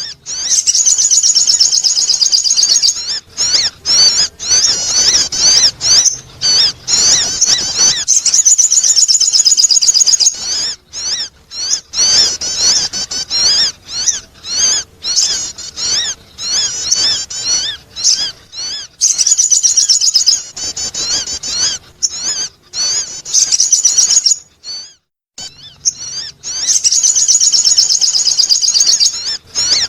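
Sogon bird singing a lure call: rapid, high-pitched warbling chatter in phrases of a few seconds, broken by short pauses and one longer pause near the end.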